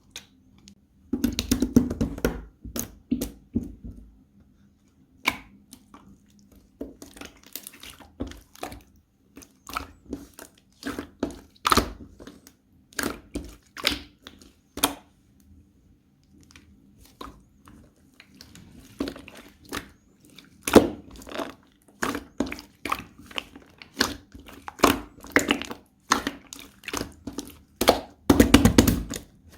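Slime being squished, stretched and pressed by hand, making irregular clusters of sharp pops and crackles as air pockets burst, with a quieter stretch about halfway.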